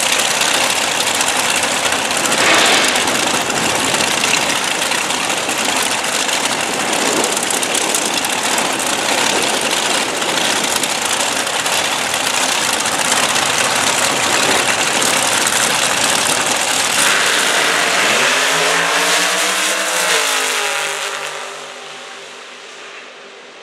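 Two Top Dragster race engines running loudly at the starting line. Near the end an engine note rises in pitch, then the sound drops off to a quieter, more distant engine tone.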